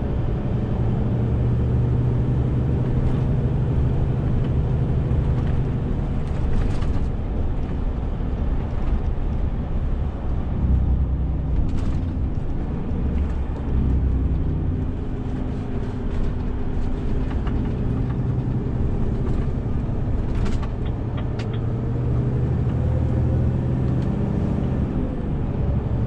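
Renault T 460 truck's six-cylinder diesel engine running while the truck drives, over steady road noise; the engine note shifts as it goes, with a higher tone rising and then dropping away near the end.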